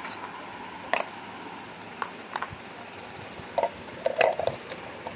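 Hard plastic parts of a manual onion chopper clicking and knocking together as the blade unit is handled and set into the clear bowl: a few single light knocks, then a louder cluster of knocks about four seconds in.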